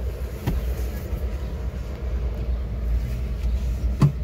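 Steady low rumble inside a car's cabin, with a soft knock about half a second in and a sharper, louder knock near the end.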